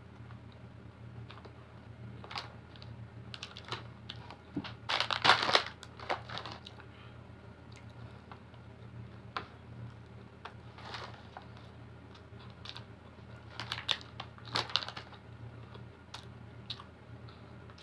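Close-up eating sounds of a soft chocolate bread roll: small wet mouth clicks and chewing, with two louder bursts of crackly rustling about five and fourteen seconds in, over a low steady hum.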